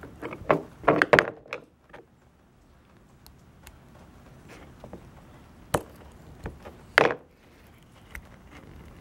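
Sharp clicks and knocks from handling a plastic male plug and small hand tools on a workbench while the ground wire is fitted to its terminal. A quick cluster of them comes in the first second or so, then faint ticks, and two louder single knocks come a little before six seconds and about seven seconds in.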